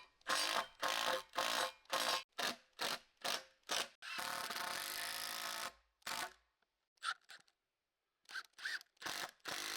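Work sounds on a timber build: a quick run of short scraping strokes, about two to three a second, then a small motor running steadily for under two seconds, followed by a few scattered knocks.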